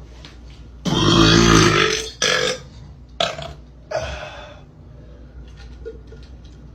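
A man burping: one long, loud, low burp about a second in, followed by three shorter burps.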